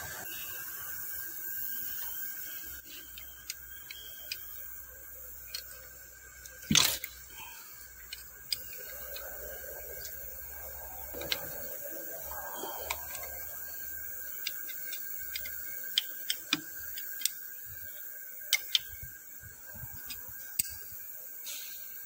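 Surface grinder running with a steady whine, resurfacing a hydraulic gear pump housing, with scattered light metallic clicks and one sharp knock about seven seconds in as the part is handled and clamped.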